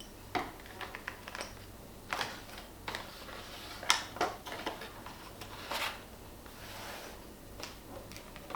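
Irregular light clicks, knocks and short rustles of small objects being handled in a small room.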